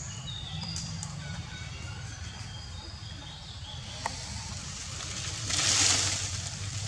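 Birds chirping and calling in short thin notes over a steady low background hum, with one sharp click about four seconds in. Near the end comes a brief, louder rustle of leaves and branches as a young macaque swings through the tree.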